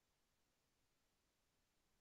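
Near silence: faint digital hiss only.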